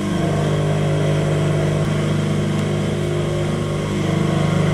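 Industrial sewing machine running, stitching a velcro strip onto jute fabric: a steady mechanical hum that gets a little louder about four seconds in.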